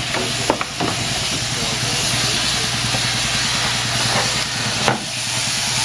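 Electric sheep-shearing machines running with a steady buzzing hiss. A few sharp knocks come through it, about half a second in, just before the one-second mark and again near the end, as a sheep is hauled out of the pen and handled.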